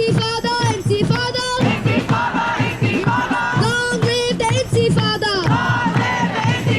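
Music with singing voices: melodic sung lines with held, bending notes over a rhythmic backing.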